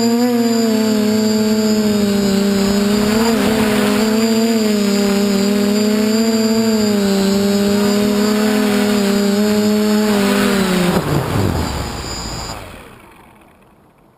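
DJI F450 quadcopter's electric motors and propellers buzzing steadily in flight, the pitch wavering slightly with throttle. About eleven seconds in the buzz drops sharply in pitch and dies away as the motors spin down.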